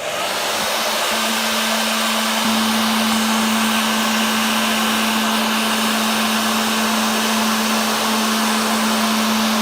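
Hot-air blower running steadily, a rush of air with a steady hum under it, heating the sticker's adhesive to soften it. It switches on right at the start.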